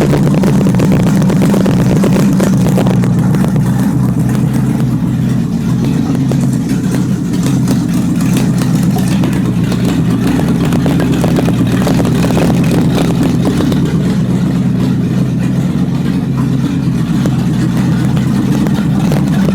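The engine of a custom-wired 1929 Chrysler idling steadily just after starting, running with the alternator charging while its shut-off with the key is being tested.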